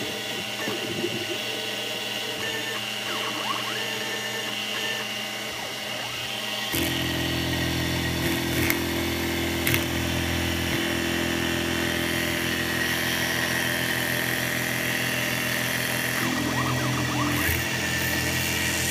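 X2 milling machine's spindle motor running steadily; about seven seconds in, a louder, lower cutting noise with a fast even flutter sets in as the end mill bites into the graphite-impregnated nylon block.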